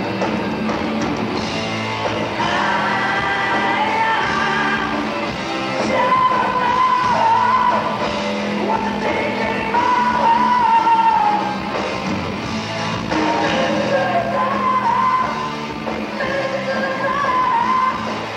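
Live rock band playing, with electric guitar, bass and drums under a male lead vocal sung in long held, wavering phrases.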